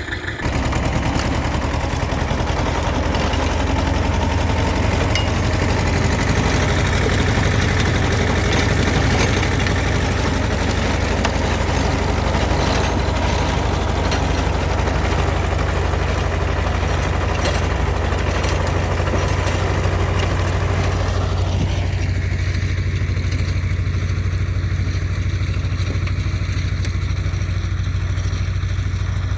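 T-25 tractor's two-cylinder air-cooled diesel running steadily with a low drone. A rough, hissing layer over it drops away about two-thirds of the way through.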